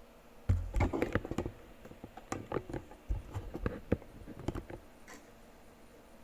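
Irregular small clicks and taps with a few short low thumps, from hands handling test probes and the monitor's circuit board during voltage measurement.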